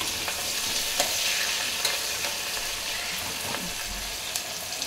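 Sliced onions sizzling in hot oil and ghee in an open pressure cooker as they fry towards golden brown, stirred with a steel ladle that scrapes and taps against the pot a few times.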